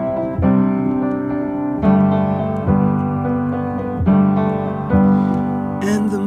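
Piano or electric piano playing sustained chords, a new chord struck about every second, as an instrumental passage between sung lines of a song.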